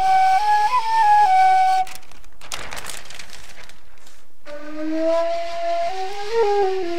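Metal flute played in a helium-oxygen atmosphere inside a plastic bag: a short phrase of held notes, stepping up and back down, pitched high and thin. After about a second of rustling noise, the flute plays a similar phrase in ordinary air, sounding markedly lower and fuller.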